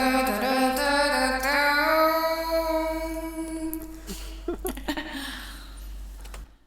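Recorded vocal take playing back: a long held sung note that fades away over the last couple of seconds and stops just before the end, with a low steady hum underneath.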